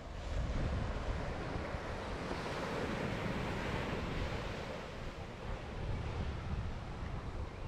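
Sea surf breaking and washing up the sand, swelling about two to four seconds in, with wind buffeting the microphone.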